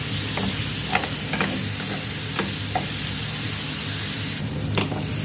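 Chicken pieces sizzling in barbecue and hot sauce in a non-stick grill pan while metal tongs stir and turn them, with a few scattered light clicks of the tongs against the pan.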